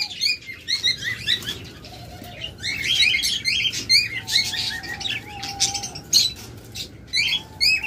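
Many budgerigars chattering together in an aviary: a dense, continuous stream of short, high chirps and warbles.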